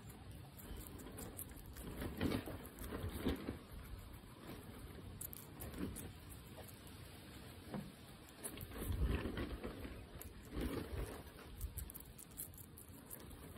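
A guinea pig biting and chewing a slice of fresh tomato, wet munching in irregular bursts with small clicks between them.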